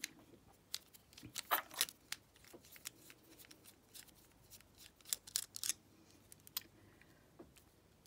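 Small metal tool working in the bottom of an Abus 72/40 padlock: scattered light metallic clicks and scrapes, with a few louder ones about a second and a half in and again past five seconds.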